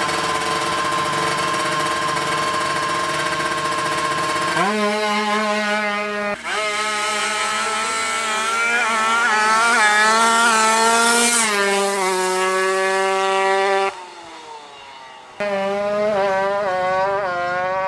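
Drag-tuned two-stroke single of a 155cc Kawasaki Ninja running hard: held at high revs, then dropping and climbing in pitch through several rises as it revs out. The sound drops away abruptly for about a second and a half near the end, then the engine is heard again.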